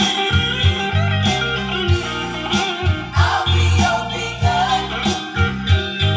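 Recorded music played through Tannoy Berkeley loudspeakers: a song with a bass line, a steady drum beat and guitar.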